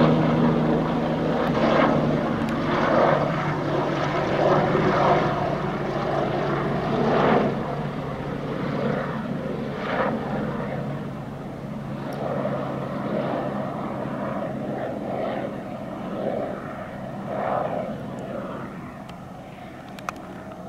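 Police helicopter flying by: a steady drone of rotor and engine, loudest at first and fading gradually as it moves away.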